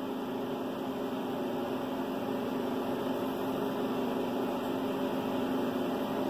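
Steady mechanical hum with hiss, holding one even tone throughout, like a fan or appliance running in the room.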